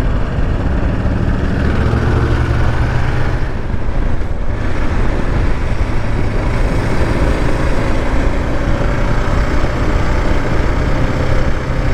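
Kawasaki KLR 650's single-cylinder engine running steadily at road speed, with wind noise on the microphone. The higher noise drops away briefly about four seconds in, then the steady run resumes.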